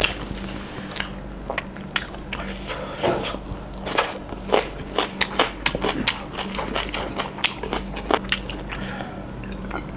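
Close-miked eating of bone-in mutton curry by hand: biting and chewing, with a run of sharp wet clicks and smacks, densest in the middle, over a steady low hum.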